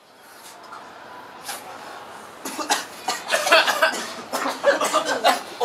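People blowing hard into balloons: a series of short, forceful puffs of breath with strained, grunting voice sounds, starting about two and a half seconds in and growing louder.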